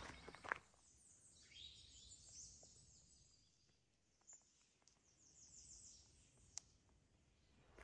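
Faint songbird calls in quiet woods: thin high chirps and sweeps, with a quick high trill about six seconds in. A few footsteps on a dirt trail stop about half a second in.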